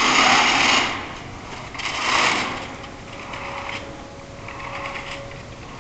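Electric drive motors and gearboxes of a mecanum-wheeled FRC robot running as it drives over a hard floor. Two louder surges come in the first two and a half seconds, then it settles into a quieter, steadier running.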